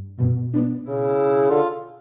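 Background music: a low instrument plays a short note, then a long held note that steps in pitch near its end and fades out.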